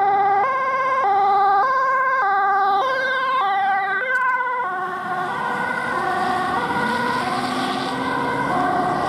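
Ambulance two-tone siren alternating between a high and a low note about every 0.6 seconds as it approaches and passes. About four seconds in, the pitch drops as the ambulance goes by, and the siren carries on lower and fainter over tyre and engine noise.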